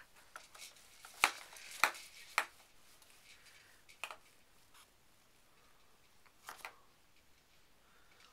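Sharp plastic clicks and knocks from a Fisher-Price Jumperoo baby bouncer as the baby moves in it: three loud ones about half a second apart starting about a second in, then a few fainter ones later.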